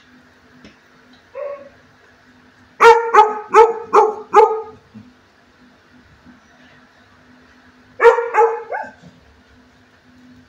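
A dog barking: a quick run of five barks about three seconds in, then three or four more about eight seconds in.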